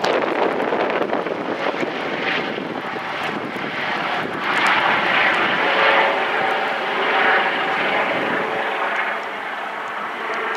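Eurocopter EC135 medical helicopter's turbines, main rotor and fenestron tail rotor in flight as it climbs overhead after takeoff, a steady rush of rotor noise with a faint whine. It grows louder about halfway through, then eases off near the end.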